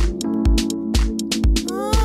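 Electronic dance track with a steady kick drum on every beat, about two a second, and ticking hi-hats. Near the end a wavering, sliding melody line comes in.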